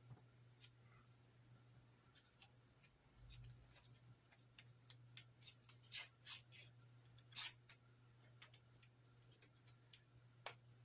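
Plastic model parts being handled at a workbench: scattered light clicks and short scrapes, a few louder ones about six and seven and a half seconds in, over a faint steady low hum.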